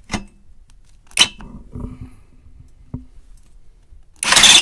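A few light metal clinks, then near the end a 20-volt cordless impact wrench on its lowest setting starts up loud and steady, spinning the bolts, which turn because their nuts behind are not held.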